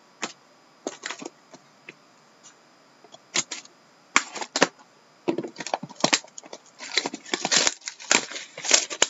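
Plastic shrink wrap on a trading card box being slit and torn off, crinkling in short, sharp crackles and rustles that start sparsely and come thick and fast in the second half.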